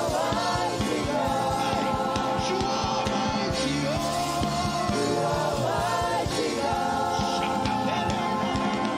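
Gospel worship band playing, with a drum kit keeping a steady beat under sustained chords, and a singing voice sliding through a melodic line without clear words.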